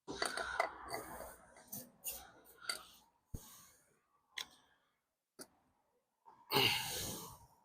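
Scattered clicks and short scrapes of a lubricated rubber exhaust mount being worked on its metal hanger by hand. Near the end comes a louder rush of noise lasting about a second.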